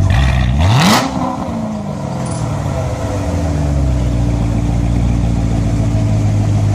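2016 Corvette Z06's supercharged 6.2-litre V8 on its stock exhaust, revving sharply up in the first second with a short loud rasp, then engine speed dropping back and settling into a steady drone.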